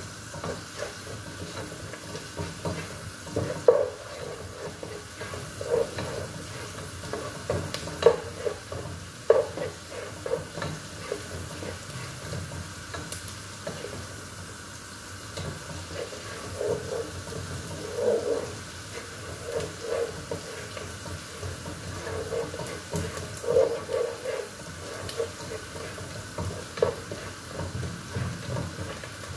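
A wooden spoon stirs food in a pot on the stove, scraping and knocking against the pot in irregular strokes, over a steady sizzle of frying.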